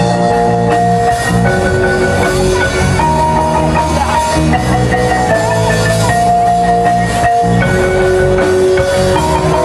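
Live front-ensemble music: marimbas and other mallet percussion with a band of drum kit, electric guitar and bass. It plays a melody of long held notes that step in pitch over a steady low bass line.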